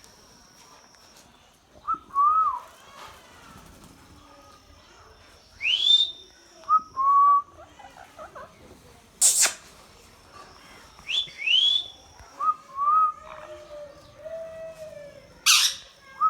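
Indian ringneck parrot whistling: short pitched notes and quick rising whistles in a repeating phrase, broken twice by a sharp, loud screech.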